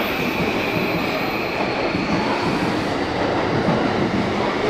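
Steady rail noise at a station platform: the running rumble of trains with a faint high whine, and no clear speech.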